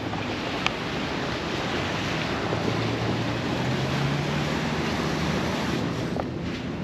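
Steady rushing wind noise on the microphone, with a faint low hum in the middle.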